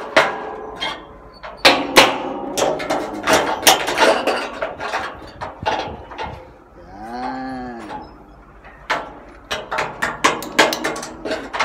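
A hammer striking nails into a wooden fence post and metal rail, many blows in uneven runs. About 7 s in, a dairy cow moos once, a call of just over a second that rises and falls in pitch.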